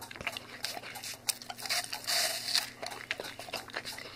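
An animal chewing an apple: irregular wet crunches and small clicks as it bites and chews the fruit.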